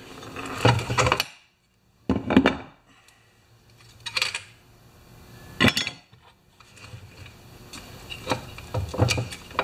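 Scattered metallic clinks and knocks of a chainsaw bar and chain and tools being handled on a workbench, with one sharper knock past the middle and a cluster of clinks near the end.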